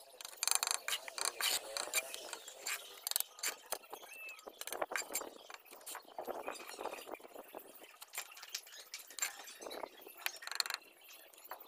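Steel mason's trowel scraping and tapping against hollow clay bricks and wet mortar while bricks are laid: an irregular run of clinks and scrapes.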